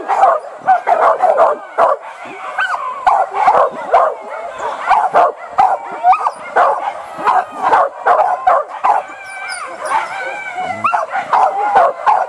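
A pack of hunting dogs barking without a break on a wild boar chase, many calls overlapping.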